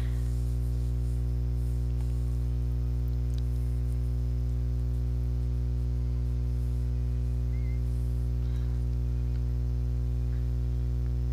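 Steady low electrical hum with a stack of buzzing overtones, unchanging throughout: mains hum picked up in the recording.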